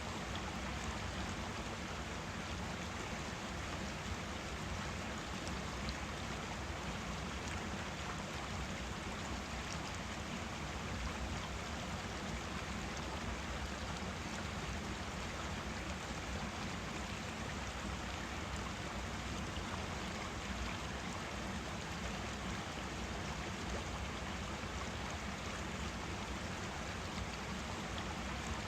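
Forest stream running over rocks: a steady rush and babble of flowing water.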